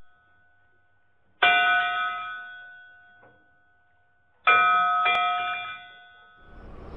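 A bright bell-like chime struck and left to ring out and fade, then struck again about three seconds later. Near the end a swelling whoosh of noise rises.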